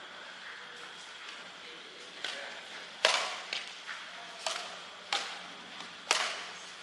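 Badminton rackets striking a shuttlecock in a rally: a run of sharp hits, about four loud ones roughly a second apart with fainter ones between, each ringing briefly, the loudest about three seconds in.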